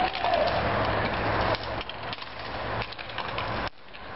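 Inline hockey play: a steady rolling noise of skate wheels on the rink surface with scattered sharp clacks of sticks and puck, and a brief shout near the start. The sound cuts off abruptly near the end.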